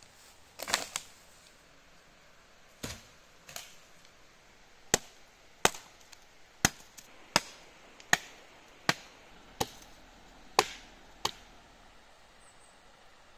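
Wood being chopped: about a dozen sharp blows, a few spaced out at first, then a steady run of strikes less than a second apart.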